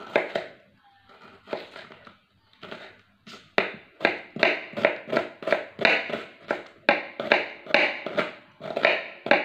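Kitchen knife finely slicing a shallot on a plastic cutting board, each cut ending in a sharp knock on the board. A few scattered cuts come first, then about three seconds in a steady rhythm of roughly two to three cuts a second.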